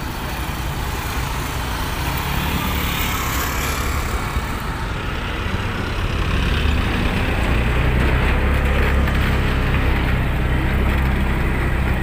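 Motor traffic: CNG auto-rickshaw engines running as they drive past, with a steady low engine rumble that grows louder about halfway through.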